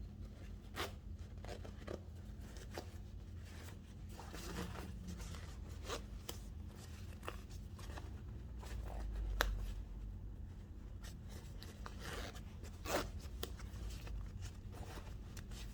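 Metal zipper on jeans being worked by hand, the refitted slider drawn along the metal teeth in small irregular clicks and scrapes as it is tested after being set back onto the teeth.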